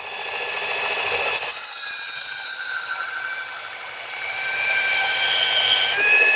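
Work Sharp belt knife sharpener running with a steady motor whine that slowly rises in pitch. From about one and a half seconds in there is a loud hiss for about a second and a half as the knife blade is drawn across the 120-grit belt on a sharpening pass.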